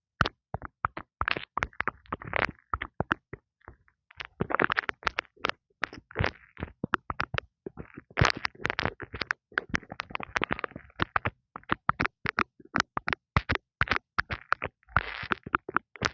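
Fingers tapping and scratching right on an earphone's built-in microphone: quick, irregular taps several times a second, with short stretches of scratching mixed in.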